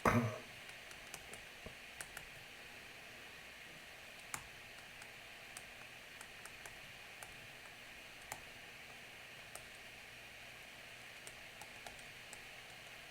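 Faint steady hiss with sparse, irregular light clicks, a dozen or two spread across the stretch, one sharper click about four seconds in and another about eight seconds in.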